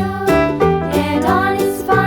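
Background music: a bright children's-style tune with a steady beat.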